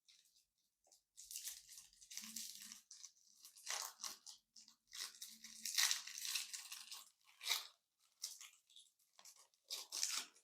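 Transparent slime with real candy pieces in it being mixed and squished, crunching and squelching in irregular bursts.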